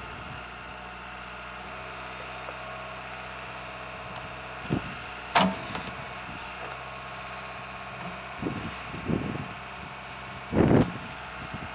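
Case backhoe loader's diesel engine running steadily while the backhoe digs, with several steady tones over the engine. There is a sharp metallic clank with a short ring about five seconds in. A few dull thuds follow near the end, the loudest about a second before the end.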